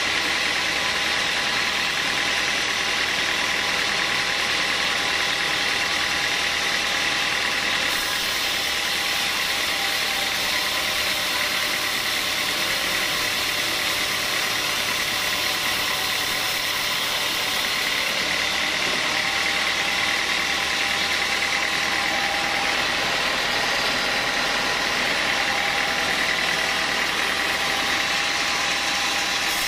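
Vertical band saw running and ripping lengthwise through a hard small-leaf acacia beam: a steady machine whine with a high ringing tone over the hiss of the cut.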